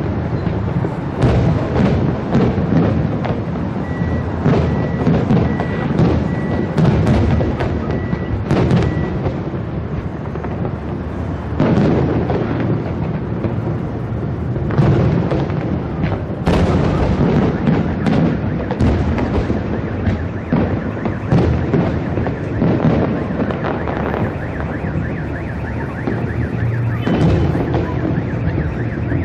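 Fireworks display: aerial shells bursting in quick succession, many bangs overlapping into a continuous rumble.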